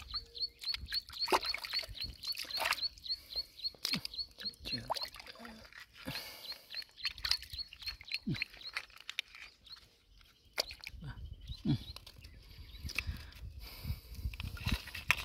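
Hands working in shallow muddy water and wet clay, with irregular splashes, squelches and mussel shells knocking together. A high, regular chirping, about four chirps a second, runs underneath and stops about nine seconds in.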